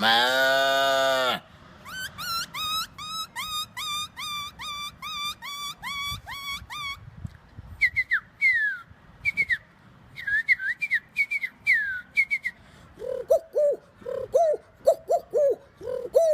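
A man imitating animal calls with his voice and whistling: a loud drawn-out call ends about a second in, then quick rising bird-like whistles several times a second, then sparser falling chirps. Near the end come low, short coos, repeated about twice a second, like a pigeon.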